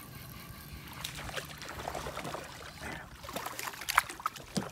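A hooked fish splashing and thrashing at the water's surface beside the boat. The splashes come thicker and sharper over the last second and a half, and the loudest is about four seconds in.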